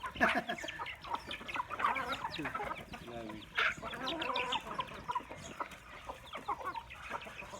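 A flock of chickens clucking as they are fed, many short overlapping calls.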